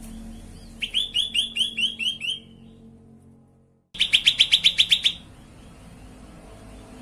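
Cucak kelabu (grey-bellied bulbul) calling in two phrases of rapid, evenly repeated high chirping notes: one about a second in that lasts a second and a half, and a faster, louder run of about ten notes about four seconds in.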